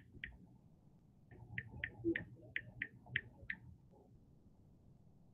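Keys being tapped: a quick, uneven run of about ten light clicks, most of them between one and four seconds in.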